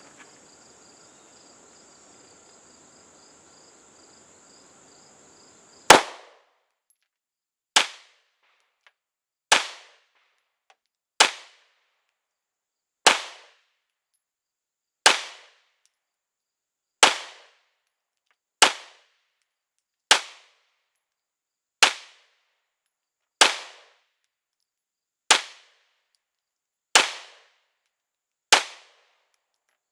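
Glock 19 Gen 5 9mm pistol fired in slow, aimed single shots, fourteen of them starting about six seconds in, one every 1.7 to 2 seconds or so. Before the first shot there is a steady high insect trill.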